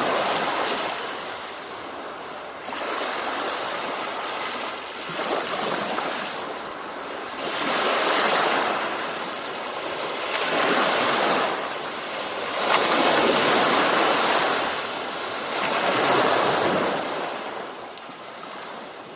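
Sea waves breaking and washing up a beach, rising and falling in repeated swells every two to three seconds, fading out near the end.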